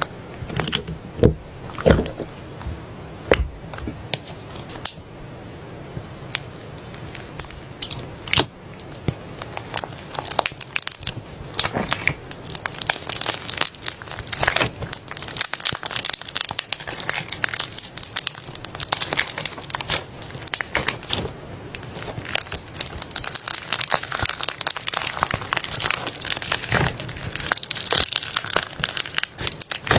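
Soft slime being squeezed and stretched by hand, making sticky clicks and crackles. A few separate pops come in the first seconds, and the crackling grows dense and near-continuous from about ten seconds in.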